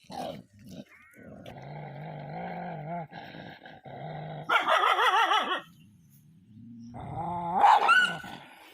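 A dog growling low and steadily for a few seconds, then giving a loud wavering whine about halfway through and a rising whine near the end.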